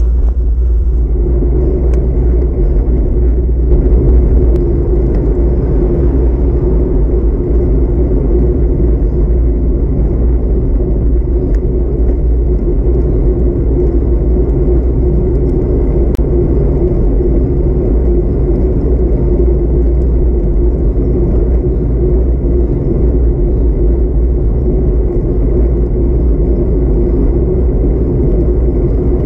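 Wind rushing over a handlebar-mounted camera's microphone on a moving bicycle, a steady low rumble, with the tyres humming on the asphalt.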